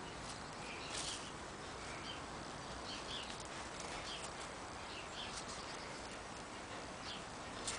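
Faint scuffs and rustles of a beagle puppy moving about on stone paving and gravel while carrying and chewing a fleece teething blanket, a few short scratchy sounds scattered over a steady background hiss.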